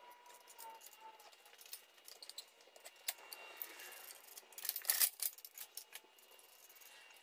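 Metal clinks and rattles of bolts and an engine stand's mounting head being fitted to the back of an engine block, with a louder cluster of clanks about five seconds in.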